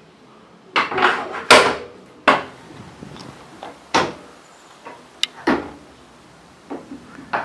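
A string of sharp knocks and clunks, about eight, from the metal fittings of a horse float being handled. One about five seconds in has a brief metallic ring.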